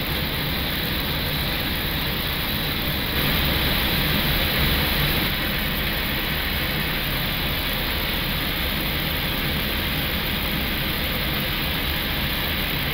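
Steady airflow and engine noise on an Airbus A321's flight deck during final approach, with the landing gear down, swelling slightly about three seconds in.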